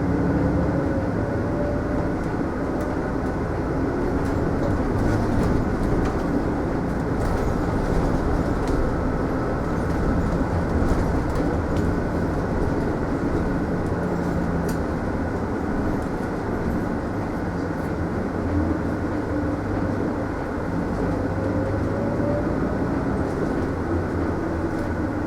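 Mitsubishi Fuso Aerostar city bus driving along, heard from inside the passenger cabin: steady engine drone and road noise. The engine's whine rises in pitch about three quarters of the way through as the bus picks up speed.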